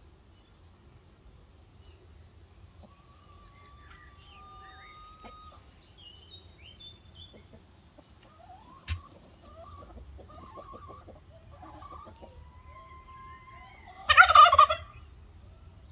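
A domestic turkey tom, strutting with its tail fanned, gobbles once about fourteen seconds in: a short, loud, rattling call. Before it come faint thin bird calls and a single sharp click.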